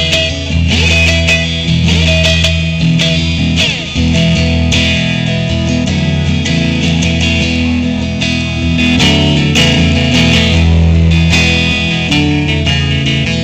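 Live blues-rock jam with an electric guitar lead played through an amplifier over the band's steady accompaniment, with some notes bent in pitch.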